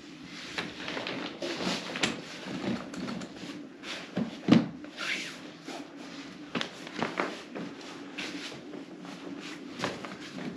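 Folding camping cot being unfolded and set up: repeated clicks and knocks of its metal frame and joints, with rustling of the fabric bed, and a sharper knock about four and a half seconds in.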